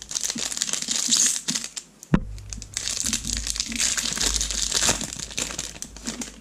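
Foil wrapper of a baseball card pack crinkling and tearing as it is pulled open by hand, with one sharp click about two seconds in.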